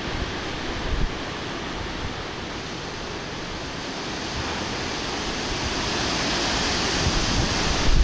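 Strong wind rushing through trees and buffeting the microphone with low rumbles, the gust building louder toward the end.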